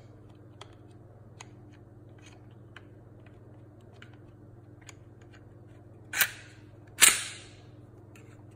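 Glock 43X slide being fitted back onto its polymer frame: faint small clicks as it rides onto the rails, then two loud, sharp metallic clacks about a second apart as the slide goes back and snaps forward into place on the frame.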